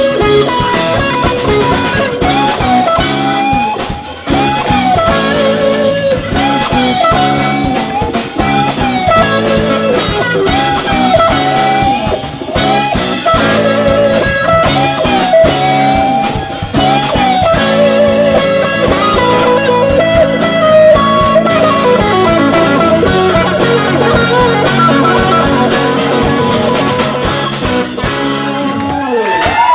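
A rock band playing live without vocals: an electric lead guitar solos with bent and wavering held notes over a drum kit and steady rhythm parts.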